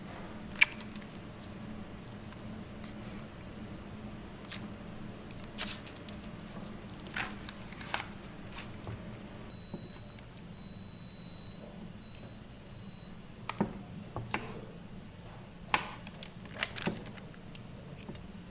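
Steady low hum of a kitchen or pub room with about a dozen scattered sharp clicks and knocks from things being handled; a faint high beep comes and goes near the middle.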